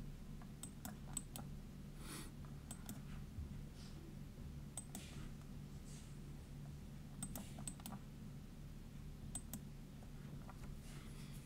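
Faint scattered clicks from a computer mouse and keyboard, several in quick pairs, over a low steady hum.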